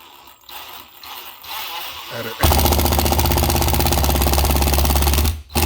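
Hammer drill driving a screw into a ceiling mounting plate: one loud, steady run of about three seconds with a fast hammering rattle, starting about two and a half seconds in, then a brief second burst just after it stops.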